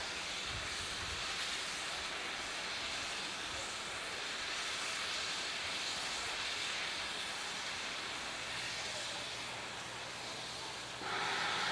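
A steady hiss, then about eleven seconds in the whistle of GWR Large Prairie tank locomotive No. 4144 starts sounding, one held high note.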